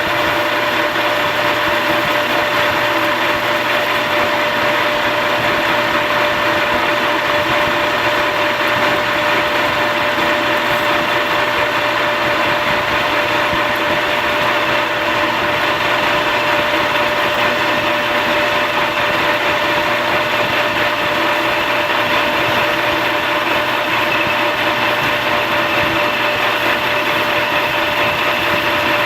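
Metal lathe running with its Bridgeport True Trace hydraulic tracer unit working, a steady machine noise with a constant whine.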